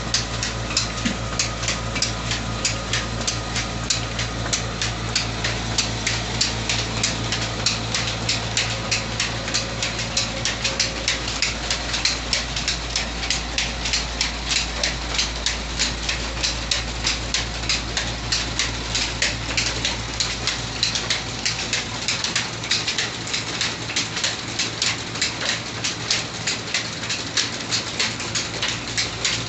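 A 25 HP electric motor and its flat-belt line-shaft drive turning a stone flour mill: a steady motor hum with a fast, even ticking, about two to three ticks a second. The hum drops away about two-thirds of the way through, while the ticking carries on.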